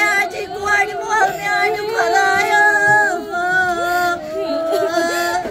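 Singing voice in long held notes with short sliding ornaments, continuous and fairly loud.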